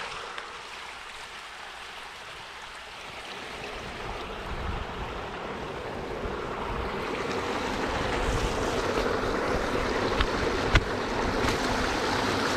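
Small woodland creek running, a steady rush of water that grows louder from about four seconds in. A few sharp clicks near the end.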